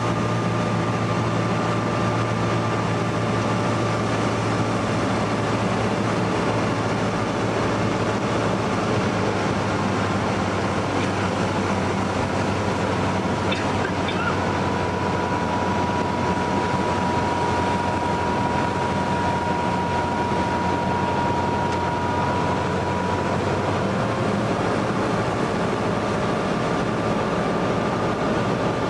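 Cessna 172N Skyhawk's four-cylinder Lycoming engine and propeller droning steadily, heard from inside the cabin on final approach.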